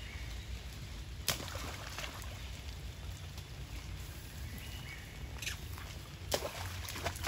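Long-tailed macaques moving about in a shallow muddy puddle: a few sharp splashes, one about a second in and more near the end, over a steady low rumble, with faint high chirps.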